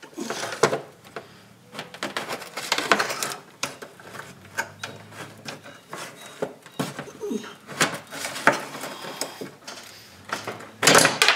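Irregular metal clicks, taps and scrapes as a magnet pickup tool on a long rod is worked around a skid plate to retrieve a dropped washer, with a louder clatter near the end.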